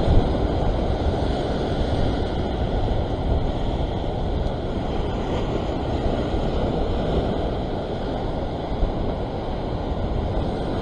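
Rough sea surf washing and foaming steadily, with wind rumbling on the microphone.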